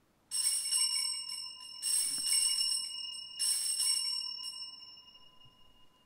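Altar bells rung in three shakes, about a second and a half apart, each leaving a ringing tone that slowly fades. They mark the elevation of the consecrated host at Mass.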